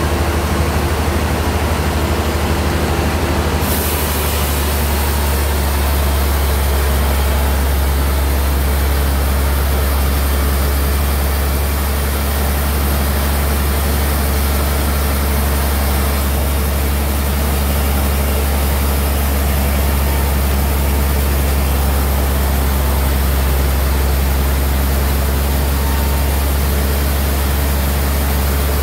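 Sawmill bandsaw running steadily under power, a heavy low hum with a broad hiss over it; the high hiss grows brighter about four seconds in and holds.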